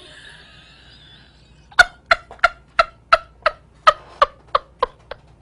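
A woman laughing helplessly in a rapid, even run of short "ha" pulses, about three a second, after a faint breathy sound in the first second or so.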